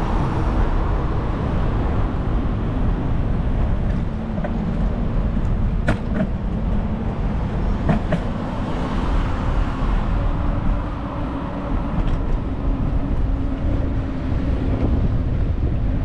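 Steady low rumble of wind and road noise from riding a bicycle along a city street with car traffic, with two sharp clicks about six and eight seconds in.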